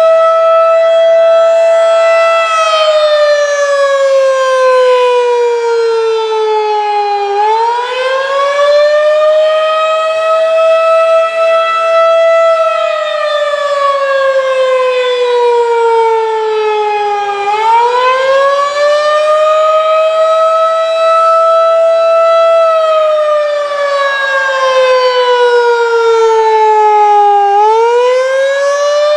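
Federal Signal 2001-DC civil defense siren sounding the attack signal: a loud wail that climbs, holds briefly near its top note, then slides slowly down, repeating about every ten seconds.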